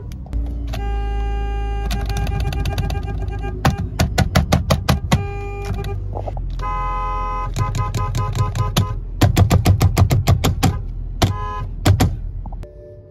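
Car horns honking, a few long held blasts between runs of quick short beeps. A steady low rumble sits underneath and drops away near the end.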